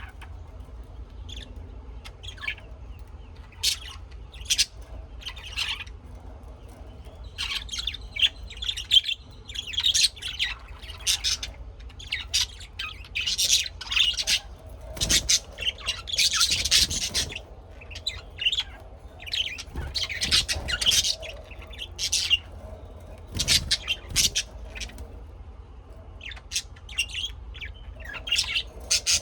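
Small birds chirping and calling: many short, high chirps, scattered at first and then in busy clusters.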